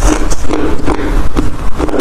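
Hard crushed ice being chewed right at the microphone: a run of loud, crisp crunches, one bite after another.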